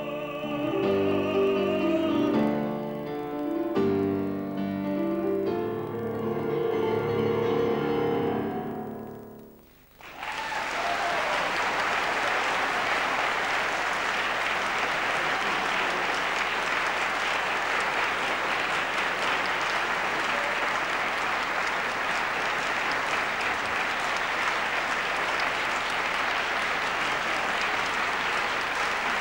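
A male classical singer with grand piano accompaniment finishes a song, the final note dying away about nine seconds in. Steady audience applause follows and continues after it.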